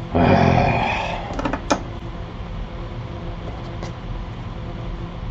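Small fume-exhaust fan running with a steady hum behind soldering work. Just after the start comes a loud rushing noise about a second long, followed by a few sharp clicks.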